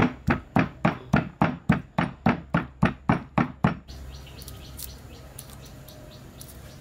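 Heavy cleaver chopping raw pork on a thick wooden chopping block, mincing it in a steady rhythm of about three to four strokes a second. The chopping stops abruptly about four seconds in.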